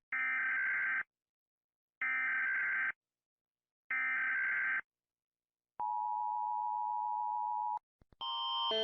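Emergency Alert System header: three identical one-second bursts of buzzy data tones about a second apart, followed by the steady two-pitch attention tone for about two seconds. Near the end a different, louder electronic alarm of several alternating tones starts.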